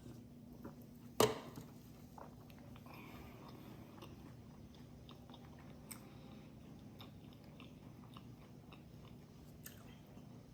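A person chewing food close to the microphone, quiet and soft-mouthed, with small wet clicks. About a second in there is one sharp click, the loudest sound. A faint steady low hum runs underneath.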